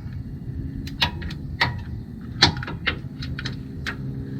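Wrench and socket working an engine bolt, checking its torque: a handful of sharp metallic clicks and clinks spaced irregularly, over a steady low hum.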